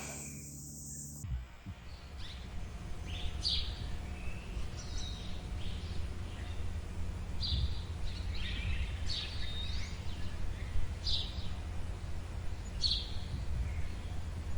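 Birds chirping, short high calls every second or two, over a steady low rumble; it starts abruptly about a second in, after a moment of quiet room tone.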